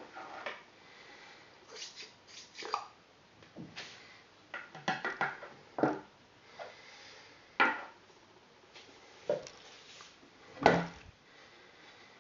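Irregular clicks and knocks of small hard parts being handled, about a dozen over the stretch, the loudest two near the middle and near the end.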